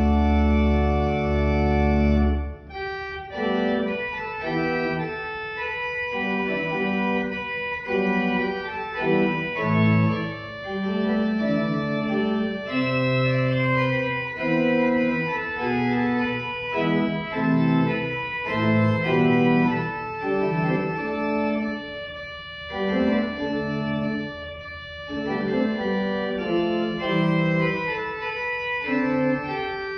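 Organ music: a held chord with deep bass notes ends about two and a half seconds in, and a new passage of sustained, changing chords and melody begins.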